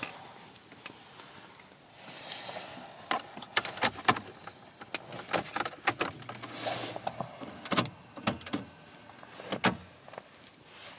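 Irregular sharp clicks and knocks inside a car's cabin, starting about two seconds in and coming thick and fast until near the end.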